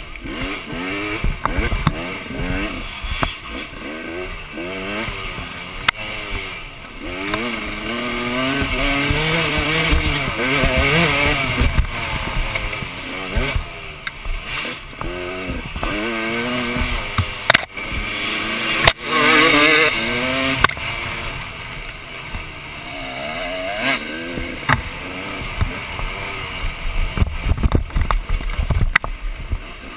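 Dirt bike engine revving up and down constantly as the rider works the throttle on a rough trail, loudest in a hard burst about two-thirds of the way through. Sharp knocks from the bike over bumps break in now and then.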